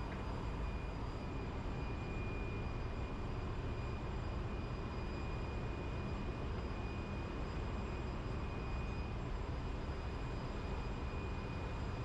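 Steady machinery drone, heaviest in the low end, with a thin high whine running over it: the constant running-plant noise of a ship's engine-room workshop.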